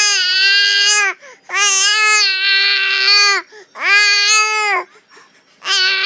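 A four-month-old baby vocalizing in long, drawn-out calls held on a steady pitch. There are four of them, with short breaths between, and the last is still going at the end.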